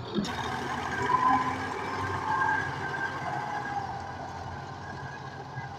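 Tractor engine running steadily under load, the sound changing abruptly just after the start.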